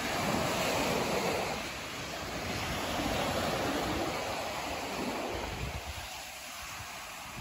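Small waves breaking and washing up a sandy beach, swelling twice and then easing off, with wind buffeting the microphone.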